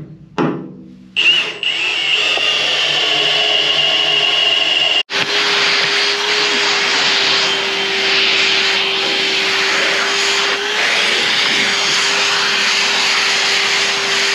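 Shop vacuum running, its hose sucking steel drill chips off a steel sheet. It starts about a second in with a high whine. After a brief cut about five seconds in it carries on with a lower steady tone.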